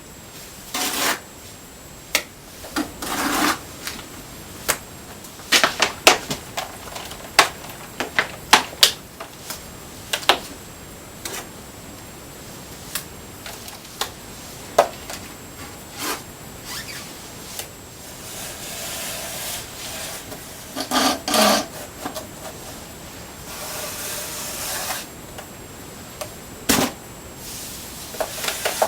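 Plastering trowel working cement mortar onto a wall: irregular knocks and clicks of the trowel, with several longer scrapes of a second or two as the mortar is spread.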